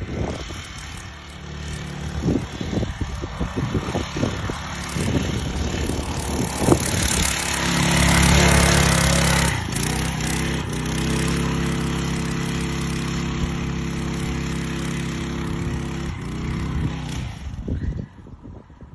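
Mini bike's small single-cylinder 212 cc engine running, loudest about eight seconds in, then holding a steady pitch before dropping and cutting off near the end. Scattered knocks and rustling come before it.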